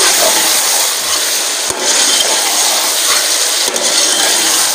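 Chicken and tomatoes frying in hot ghee in a metal pot, a steady loud sizzle, with a perforated steel spoon scraping and stirring against the pot.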